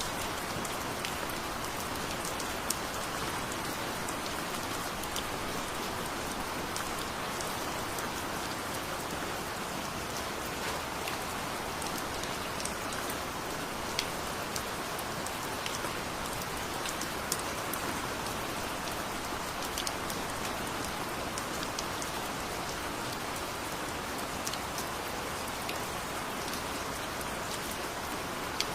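Heavy rain falling steadily, an even hiss with many sharp individual drop ticks scattered through it.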